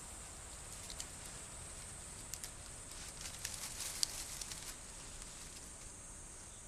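Faint rustling and crackling in dry leaf litter as a chimpanzee handles and feeds on a bushbuck carcass, scattered ticks over a steady high hiss.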